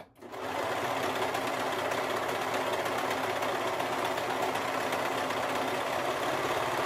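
Brother 1034D overlock serger starting up about half a second in, then running steadily at speed as it stitches and trims the edge of a fabric strip in a test seam.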